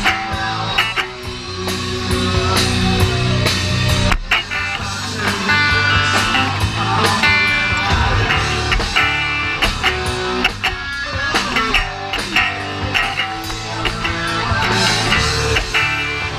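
Live rock band playing an instrumental passage without vocals: guitar to the fore over bass and steady drum hits.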